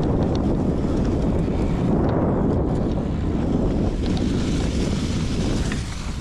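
Wind rushing over a chest-mounted GoPro's microphone as a BMX bike rolls across grass: a steady low rumble with a few light ticks.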